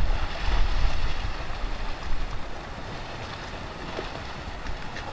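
Wind buffeting the microphone as an irregular low rumble, strongest in the first second or two and then easing off.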